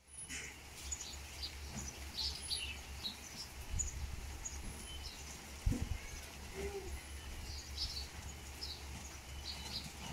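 Small birds chirping: many short, high chirps scattered throughout, over a steady low rumble, with one low thump a little after halfway.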